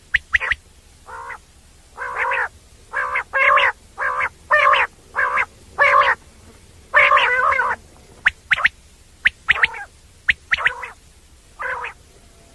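Common quail calling: a run of short, harsh repeated notes, one every half-second to a second, mixed with quick thin high notes, and one longer drawn-out call about seven seconds in.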